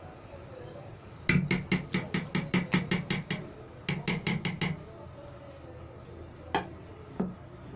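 A spoon knocking rapidly against the side of a stainless steel pot while beating a thick cream: a fast run of about five strikes a second for two seconds, a shorter run after a brief pause, then two single knocks.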